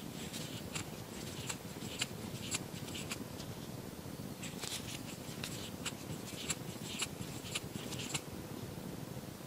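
Crochet hook working yarn: soft, irregular scratching swishes and light ticks as stitches are hooked and pulled through.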